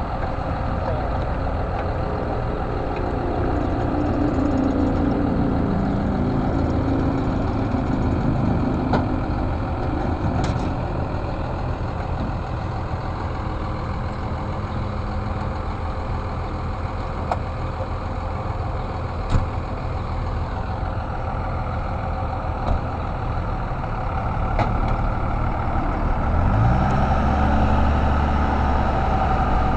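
A Dodge pickup truck's engine idles steadily with a few short knocks. About 26 seconds in, it revs up with a rising pitch and settles into a steady pull as the truck drives the empty boat trailer up the ramp.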